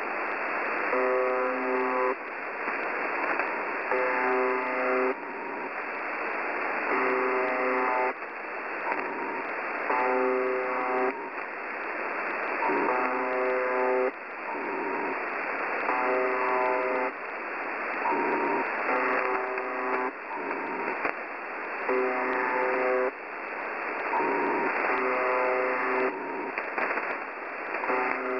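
UVB-76 shortwave station ('The Buzzer') heard through a radio receiver: short harsh buzzes about a second long, repeating roughly every two seconds, over steady static hiss.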